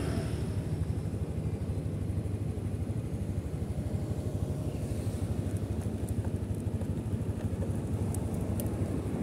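Motorcycle engine running steadily with an even, low pulse.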